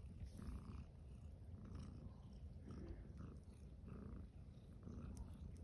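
A cat purring, low and faint, swelling roughly once a second.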